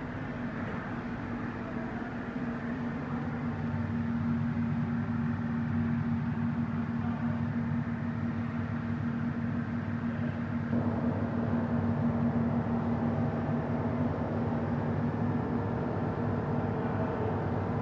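A steady mechanical hum like an engine running, growing gradually louder, with more mid-range noise joining about eleven seconds in.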